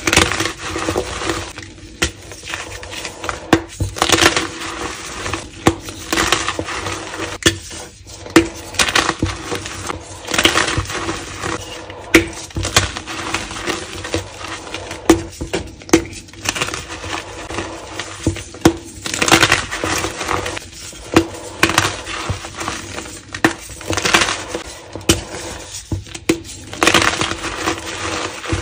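Pieces of dyed gym chalk crushed and crumbled by hand: continual crunching and crackling, with louder snaps every second or two as chunks break apart.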